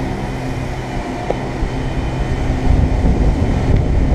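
Steady mechanical hum with several held low tones. A rougher low rumble swells in about two-thirds of the way in.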